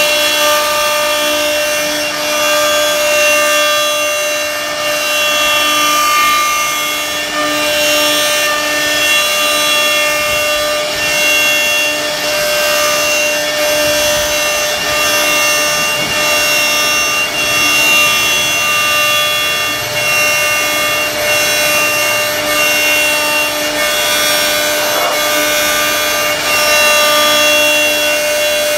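CNC router spindle running at a steady high whine as its bit carves a floral relief into a wooden door panel, with the rasping of the bit cutting the wood.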